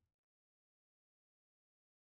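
Digital silence: no sound at all.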